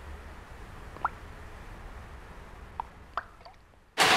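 Water drops plopping, once about a second in and twice close together near the end, over a faint low rumble.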